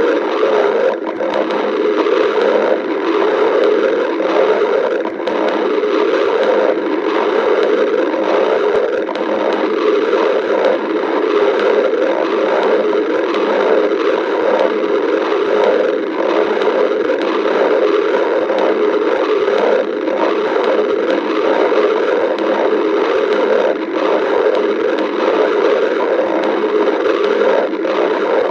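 Human stomach growling: a continuous, steady gurgling rumble with many small irregular bubbling flickers and no break.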